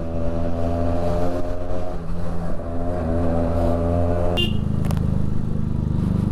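Motorcycle engine running while under way, its note shifting a little in pitch. About four seconds in the sound breaks off with a click and gives way to a lower, steady rumble.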